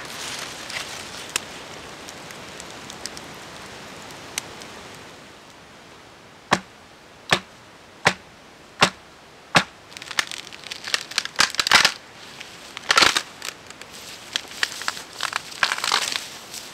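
Campfire crackling with a few light pops. After that come five sharp wooden knocks about three-quarters of a second apart, then crunching and rustling of snowy branches with one loud crack as wood breaks.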